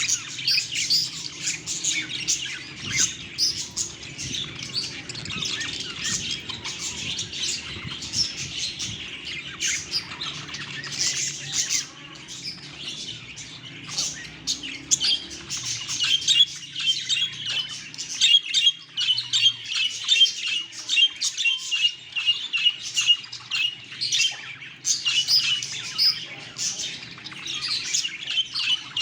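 Budgerigars chattering and chirping non-stop, a dense run of quick, high calls overlapping one another, with stretches of fast repeated chirps in the second half.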